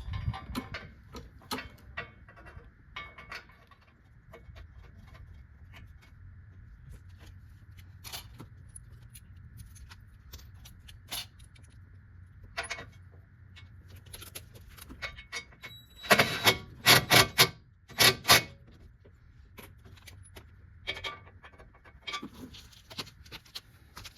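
Metal clinks, taps and scrapes of hand tools and 10 mm bolts being worked into a quarter-inch steel skid plate, with a louder run of rattling clanks about two-thirds of the way through.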